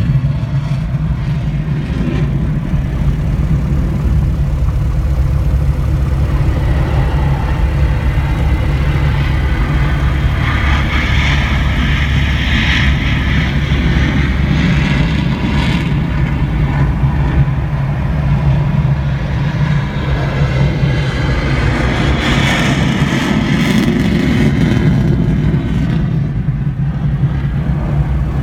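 Aircraft engine idling with a steady low drone. A higher rushing hiss swells and fades twice, about a third of the way in and again later on.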